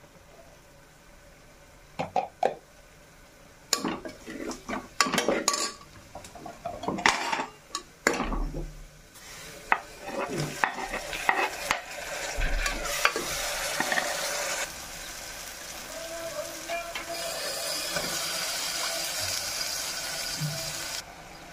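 Cooking in a pressure cooker pot. A spoon scrapes and clatters against the metal as spices and chopped tomatoes are tipped in. From about ten seconds in, the onion-tomato masala sizzles steadily as it fries in oil, and the sizzle cuts off suddenly near the end.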